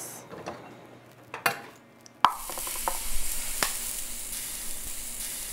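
Hot olive oil poured from a metal ladle into a bowl of raw shredded potato, onion and egg, sizzling loudly and steadily from about two seconds in as the batter starts to cook. A few sharp clinks of the ladle come before and during it.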